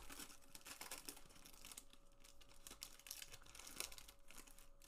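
Foil wrapper of a Panini Chronicles basketball card pack crinkling faintly and irregularly as hands tear and peel it open.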